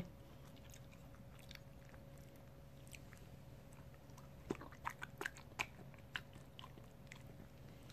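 Miniature schnauzer licking and smacking plain yogurt off a spoon: a quick run of small wet mouth clicks and smacks a little past halfway, over a faint steady room hum.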